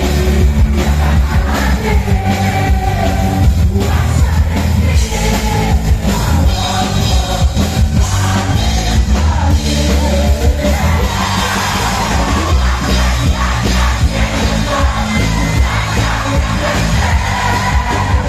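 A live band with singers playing loud amplified music through a PA system, with a strong steady bass.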